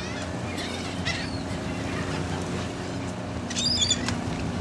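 Seabirds (gulls) calling a few times in short arched cries, the loudest cluster about three and a half seconds in, over the steady low drone of a boat engine running.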